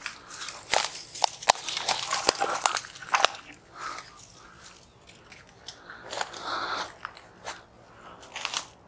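Dry twigs and brush cracking and crunching as someone pushes through a dense thicket. The sharp snaps come thickest in the first three seconds, then thin out.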